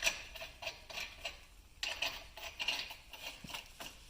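Lug nuts clinking and rattling against the wheel and studs as they are spun on by hand, in several short clusters of metallic clicks.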